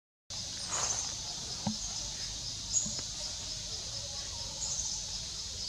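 Woodland ambience: a steady, high-pitched insect chorus with an even pulse, and brief bird chirps every couple of seconds.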